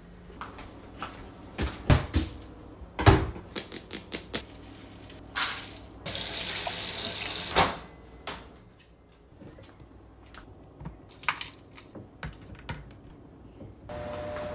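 Kitchen sounds: a clatter of knocks and clinks, then a tap running for about a second and a half, then scattered light clicks and knocks.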